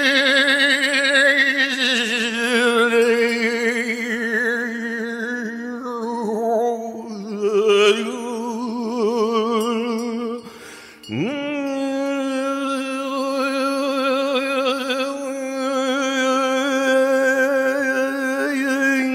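A single voice singing long wordless held notes, wavering in pitch and gliding between notes, with a short break for breath a little past halfway before the next note slides up into place.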